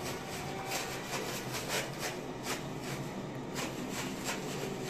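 Paper crinkling and tearing in quick, irregular crackles as a cat bites and claws at a wad of crumpled tissue.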